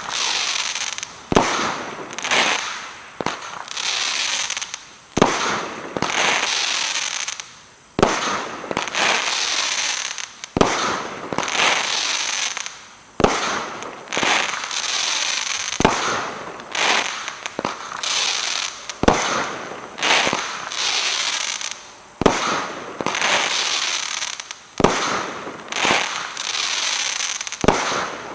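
A consumer 25-shot aerial cake firing in sequence. Each shot is a sharp launch report followed by about a second of noisy burst that fades, repeating every one to three seconds.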